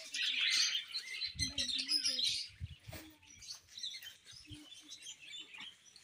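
A flock of budgerigars chirping and chattering, many overlapping chirps, busiest in the first couple of seconds and thinning out after, with a few low bumps in the middle.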